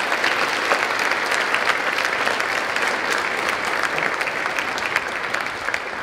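Audience applauding: dense, steady clapping from many hands, easing slightly near the end.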